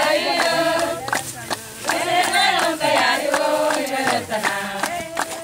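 A group of women singing together in a chant-like song, with regular hand clapping keeping the beat.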